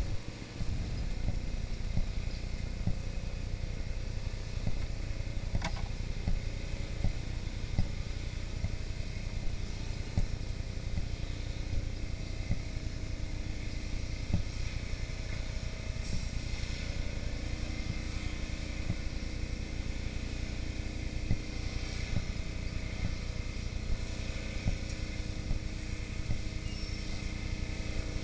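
Steady low rumble of fire apparatus engines running, with scattered small clicks and knocks.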